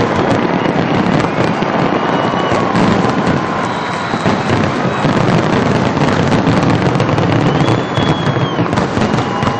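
Fireworks grand finale: a dense, continuous barrage of aerial shell bursts and crackle with no let-up.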